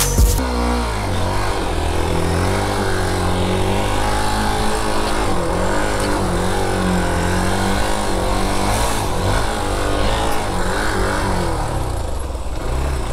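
Hero XPulse motorcycle's single-cylinder engine being ridden off-road, revving up and down with the throttle so its pitch keeps rising and falling.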